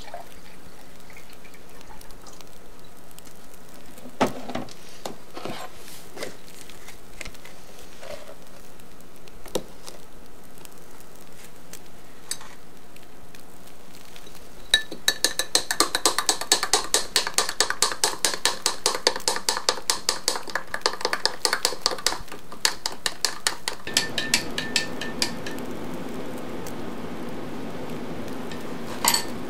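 Metal spoon stirring milk in a tall drinking glass, clinking against the glass in a fast, even rhythm of several clinks a second. The clinking starts about halfway in and lasts about ten seconds.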